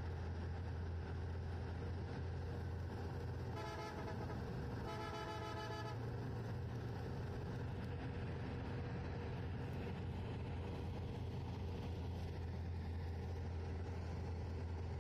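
Steady low vehicle rumble, with a vehicle horn sounding twice about four and five seconds in: a short toot, then a longer one lasting about a second.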